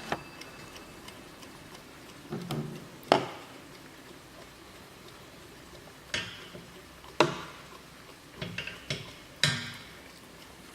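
Warmink mantel clock ticking, with sharp clicks and knocks at uneven intervals a few seconds apart; the loudest come about three seconds in and about seven seconds in.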